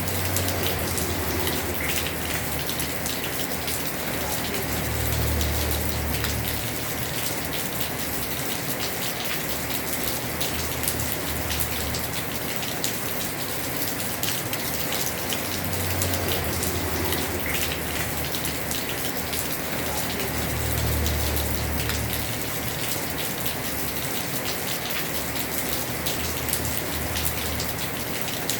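Heavy rain falling on a house roof: a dense, steady patter of drops, with a low rumble that swells up and dies away several times.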